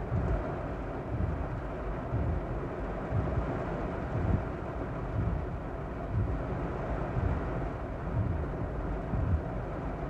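Torrential rain beating steadily on a car's roof and windshield, heard from inside the car, with a low uneven rumble swelling and fading underneath.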